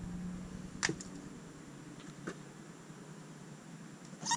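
Quiet room tone with a faint low hum that fades out within the first second, and a few light clicks, the clearest about a second in.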